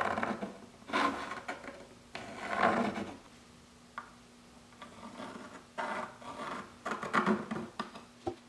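Pencil scratching and rubbing on the wooden side of a mandocello body in about six short strokes while a line is drawn along a metal square.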